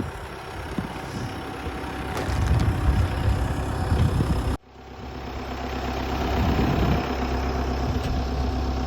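Farm tractor engine running, growing louder about two seconds in; the sound breaks off abruptly about four and a half seconds in, then the engine comes back and builds again.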